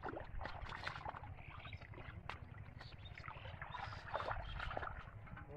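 Splashing and sloshing in shallow muddy water, with irregular small splashes and clicks as a fish is grabbed and lifted out by hand, over a low rumble.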